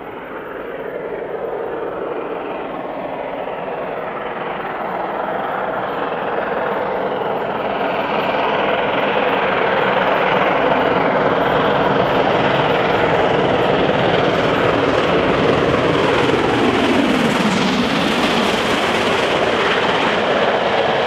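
Two mainline steam locomotives double-heading a heavy train, GWR King class 6024 King Edward I leading and A1 Pacific 60163 Tornado behind, working hard at high speed. The sound grows steadily louder as they approach, and drops in pitch as they pass, a little before the end.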